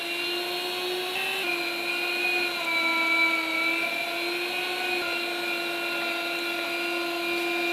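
Electric meat grinder running as beef chunks and fat are pushed through it and come out as mince, with a steady motor whine. Its pitch steps down a little about a second and a half in.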